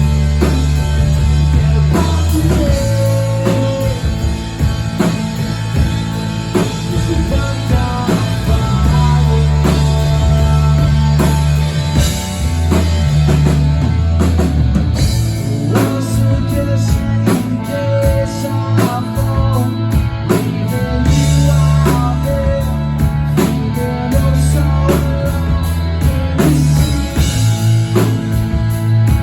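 Live rock band playing a song: a drum kit keeping a steady beat under guitars and a heavy low end.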